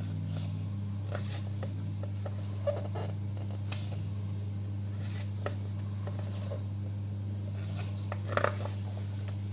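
Glossy pages of a bound art book being turned by hand: soft paper rustles and light flicks, the loudest just over eight seconds in, over a steady low hum.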